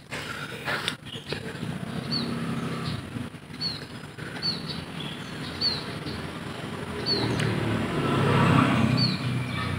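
Low hum of a motor vehicle engine that grows louder near the end, with short high chirps, each falling in pitch, repeating about every second.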